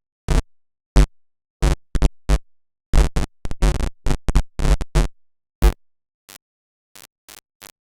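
Teenage Engineering OP-1 Field drum loop running through its bit-crusher effect: short, chopped drum-machine hits separated by dead silence, irregularly spaced, thinning to a few faint clicks near the end.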